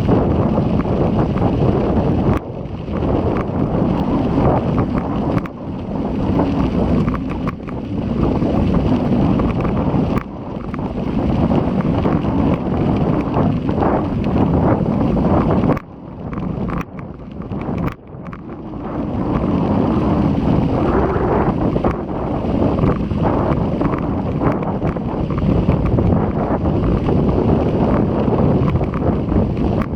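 Strong, gusty wind buffeting the action camera's microphone while cycling: a loud, rough, uneven rumble that rises and falls with the gusts and briefly drops away about 16 seconds in and again around 18 seconds.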